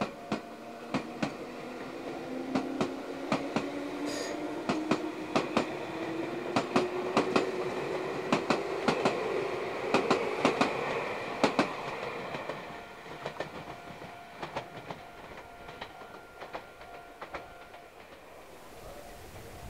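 Meitetsu electric train pulling away. Its traction motors give a whine that rises steadily in pitch as it gathers speed, with a quick, regular clickety-clack of wheels over rail joints. Both fade after about twelve seconds as it draws off into the distance.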